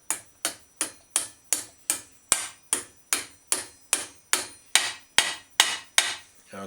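Ball-peen hammer giving a steady run of light taps, about two and a half a second, each with a short metallic ring, to start a two-piece rapid rivet through a steel Schwinn fender and fender stay.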